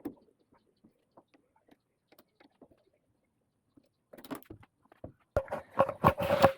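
Scattered faint clicks, then about two thirds of the way in a quick run of loud, sharp knocks and clatter from parts being handled, with a faint ringing tone under them.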